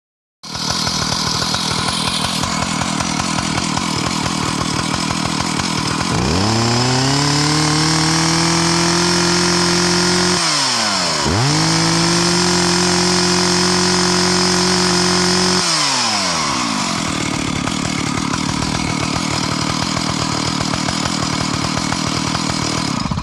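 Stihl 032 AV two-stroke chainsaw idling, then twice revved up to full throttle and held for about four seconds each time before dropping back to idle. The saw is tuned to about 11,000 rpm at wide-open throttle and an idle of about 2,700 rpm, with a freshly rebuilt carburetor.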